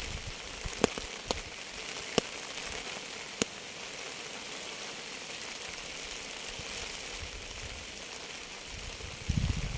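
Steady rain hissing, with a few sharp drops ticking loudly in the first few seconds and a brief low rumble near the end.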